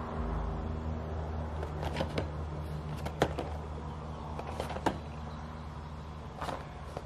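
A cardboard collectible box with a plastic window being turned over in the hands, giving a few light taps and clicks, over a steady low hum.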